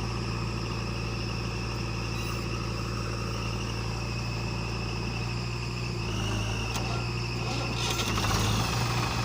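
Heavy diesel engine of a working machine running steadily near idle, its speed stepping up slightly about six seconds in and getting a little louder near the end.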